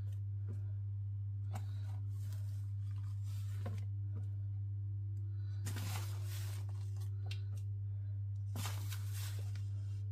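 Paper flour bag crinkling in several short bursts as flour is poured from it into a Thermomix mixing bowl, over a steady low hum.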